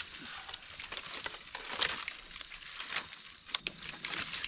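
Dry branches and twigs rustling and snapping as they are piled onto a smouldering campfire, in irregular crackles and sharp clicks.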